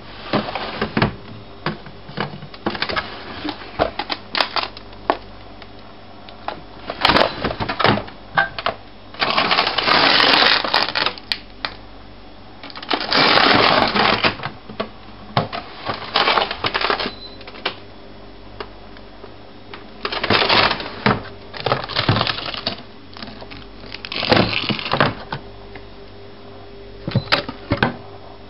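Frozen breastmilk storage bags being handled in a freezer, the hard-frozen plastic bags clacking and crinkling against each other, with plastic freezer drawers being pulled out. Irregular bursts of rattling and clattering with short pauses between them.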